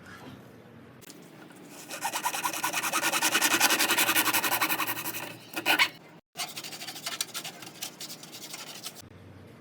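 Rapid rasping strokes of abrasive rubbing on a hard surface, loudest a couple of seconds in. They break off briefly past the middle and carry on more quietly until near the end.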